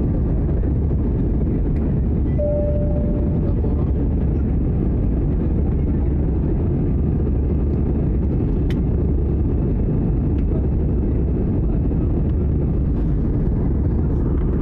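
Steady engine and airflow drone heard inside an airliner's cabin in flight, a deep, even rumble. A short steady tone sounds for about a second, some two and a half seconds in.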